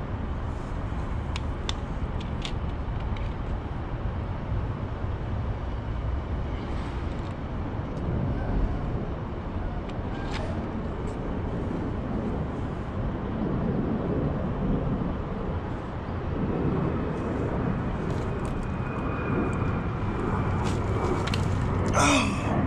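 Steady low vehicle rumble, with a few light clicks and a brief louder rustle near the end.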